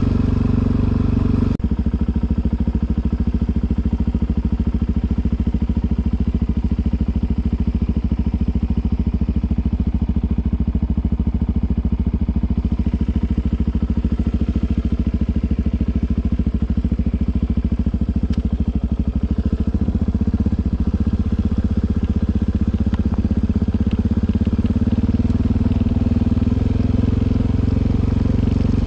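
Suzuki DR-Z400's single-cylinder four-stroke engine running steadily, its note rising slightly about twenty seconds in.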